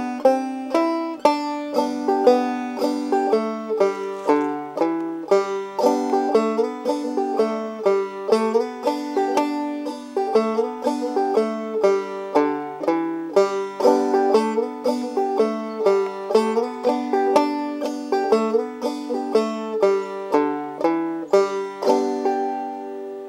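Banjo music: a fast picked bluegrass-style tune, several notes a second, settling on a held chord that rings out near the end.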